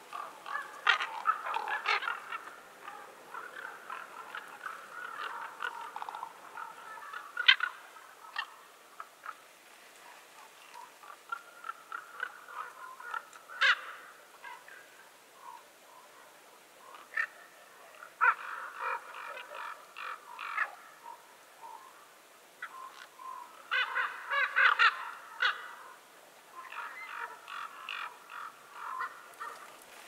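Corvids calling in several irregular bouts of short repeated notes, with sharp clicks among the calls.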